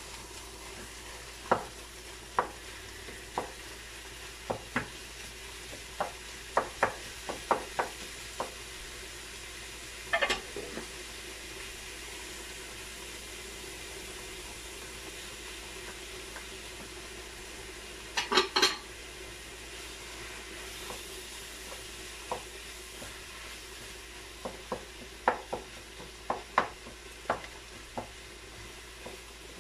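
Ground beef and onion frying in a pan with a steady sizzle, stirred with a wooden spoon that knocks sharply against the pan now and then. There is a quick cluster of knocks about ten seconds in and a louder one a little past the middle.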